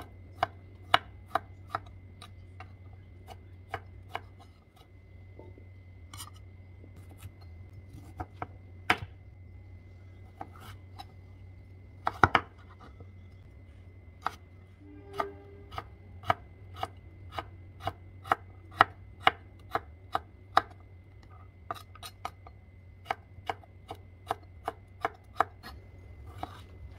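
A chef's knife chopping cucumber and then carrot on a wooden cutting board. The blade knocks sharply on the board in quick runs of strokes with short pauses between them, over a faint steady hum.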